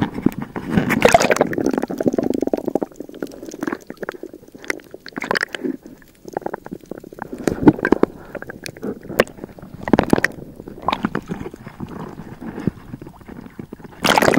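Sea water sloshing and gurgling around an action camera as it dips in and out of the surface, muffled underwater, with irregular surges and short splashes.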